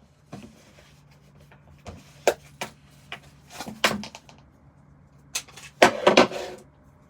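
Sharp metallic clicks and clacks of a Smith & Wesson 5904 pistol being handled and cleared, a handful of separate clicks followed by the loudest cluster of clacks about six seconds in.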